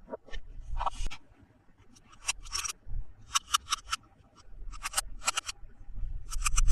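Hands handling toys and their plastic packaging: a run of short, crisp clicks and rustles, some in quick clusters of three or four.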